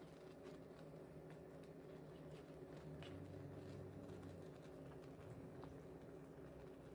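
Near silence: a low, steady hum with a few faint clicks scattered through it.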